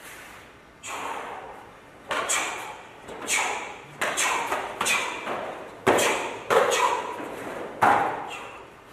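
A dozen or so sharp snaps and thuds from a karateka's punches and foot moves during a solo form, irregularly spaced, each ringing briefly in a large hall.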